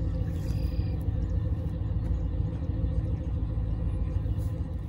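Pickup truck engines idling, a steady low hum, left running to warm up on a cold morning.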